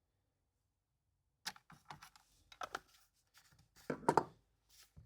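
A scatter of light plastic clicks and knocks from handling the Stihl MS180c chainsaw's caps and housing while it is being refuelled, with a denser, louder cluster about four seconds in.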